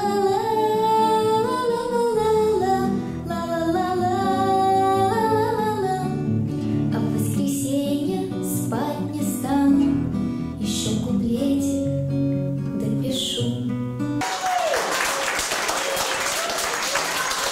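A young woman singing to acoustic guitar accompaniment, the last phrases of a song. The music stops about fourteen seconds in and the audience breaks into applause.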